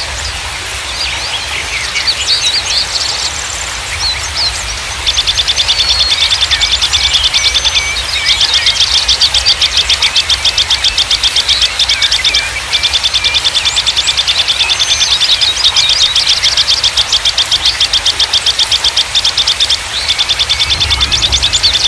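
Small songbirds chirping, then long, fast, evenly pulsed trills repeated in runs of several seconds, over a low steady rumble.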